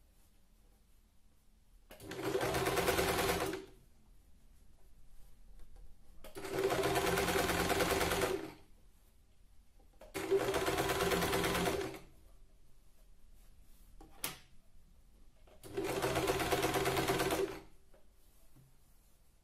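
HomeDecor 1015 electric sewing machine stitching a seam through two layers of fabric in four short runs of about two seconds each, stopping between runs. A single sharp click sounds between the third and fourth runs.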